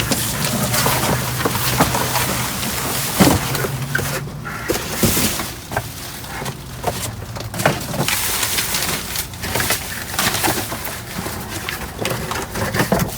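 Rummaging through trash in a dumpster: bags and packaging rustling, with items clicking and knocking against each other. A low steady hum stops about four seconds in.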